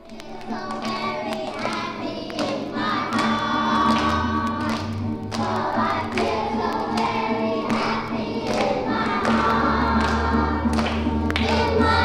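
A group of voices singing together like a choir, over a steady low held note, with a few soft thumps.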